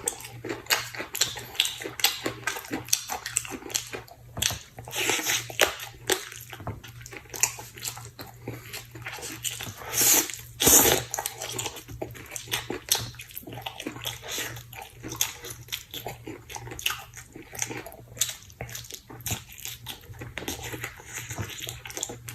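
A person eating close to the microphone: wet chewing and lip-smacking in quick, irregular smacks.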